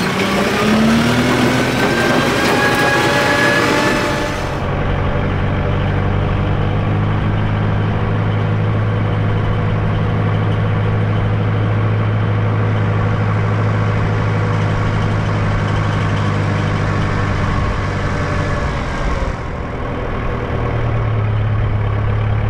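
Kubota tractor's diesel engine revving up over the first four seconds as the tractor pulls away, then running steadily under way. It is heard from inside the cab at first, then duller from the cab roof.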